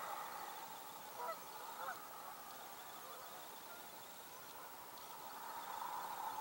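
Canada geese honking in flight: a few short honks about a second and two seconds in, over a steady background hiss.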